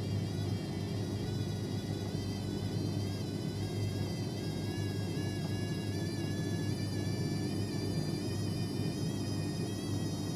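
AEG Lavamat LC53500 front-loading washing machine spinning: a steady low hum with a high motor whine above it that wavers slightly in pitch.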